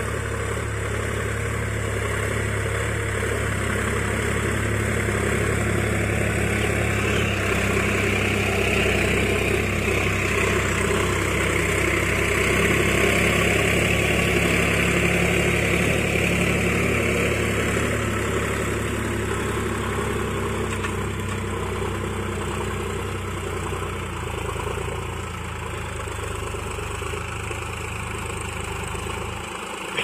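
Sonalika RX 47 4WD tractor's diesel engine running steadily under load as it pulls a five-tine plough through the soil. It grows louder toward the middle, as the tractor comes closest, and eases off toward the end.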